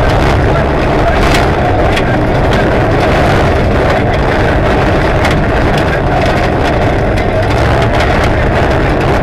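Rally car engine running hard at high revs, heard from inside the stripped cabin, with road noise and many sharp ticks and knocks of grit and stones striking the body.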